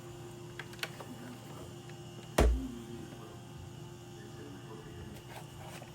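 A steady low hum with a few light clicks and one dull thump about two and a half seconds in.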